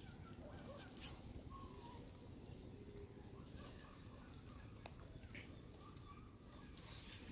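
Near silence: faint outdoor ambience with a few soft, distant bird chirps and a couple of faint clicks.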